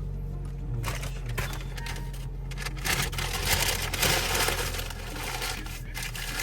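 Inside a moving car in the rain: a steady low engine and road hum, with a crackling hiss of rain and wet road that grows about a second in and is loudest around the middle.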